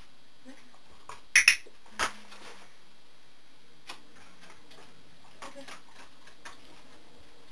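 Training clicker clicked: two sharp clicks in quick succession about one and a half seconds in, marking the dog's correct behaviour. A softer knock follows about half a second later, then a few faint ticks.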